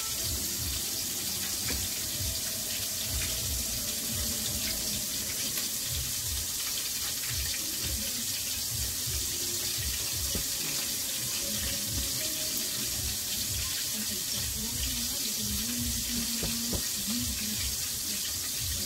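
Steady sizzle of chicken frying in a pot of hot oil, with soft low knocks from hands working the flour coating.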